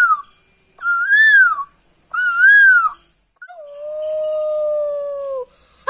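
A boy's voice imitating a dog howling: two short high calls that rise and fall, then one long lower howl held steady and sagging at the end.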